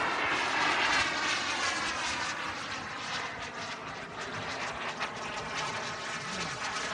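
Kingtech 140 turbine of a Carf BAE Hawk model jet rushing past in a high-speed flyby. It is loudest about a second in, then fades away as its pitch slowly falls.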